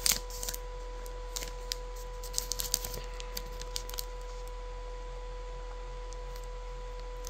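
Scattered light clicks and crinkles of a chocolate bar's plastic wrapper being handled, mostly in the first few seconds, over a steady faint high electrical whine.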